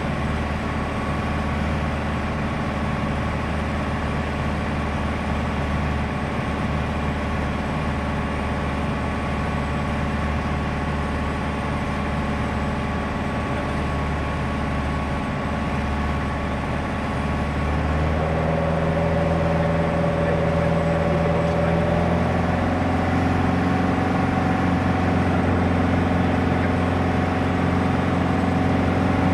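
Light aircraft's piston engine and propeller droning steadily. About eighteen seconds in the engine note shifts higher and gets a little louder, and it steps up again a few seconds later: a change in engine power.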